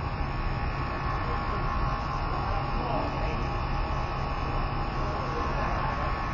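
A steady low hum over a constant hiss of background noise, unchanging throughout.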